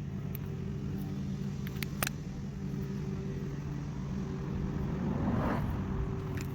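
A vehicle engine idling steadily, with a few sharp clicks about two seconds in.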